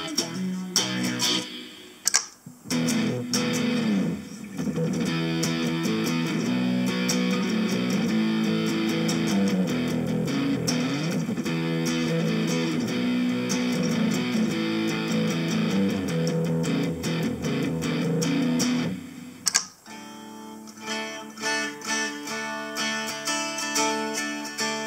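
Electric guitar played through presets of a Harley Benton DNAfx GiT multi-effects processor: sustained, layered notes. About twenty seconds in there is a short break, then a new sound with separate picked notes, as the next preset comes in.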